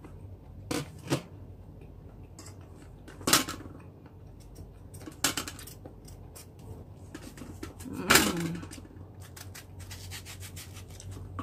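A small knife peeling the skin off an unripe green mango: short scrapes and clicks of the blade on the firm fruit, with a few louder knocks against a metal tray. A brief voice-like sound about eight seconds in.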